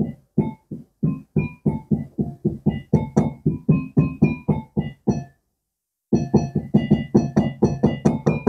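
Electronic mallet percussion controller struck with a felt mallet, its synthesized notes played through a small LM386 breadboard amplifier and speaker. A melodic run of short, quickly decaying notes comes at about four or five a second, breaks off for just under a second, then resumes faster. The builder found that this amplifier gave very little amplification.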